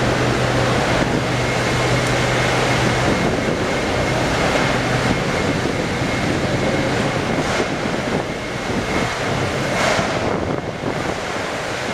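Steady quayside machinery and engine noise, with a low hum that fades about three seconds in, a faint steady high whine, and a few brief knocks.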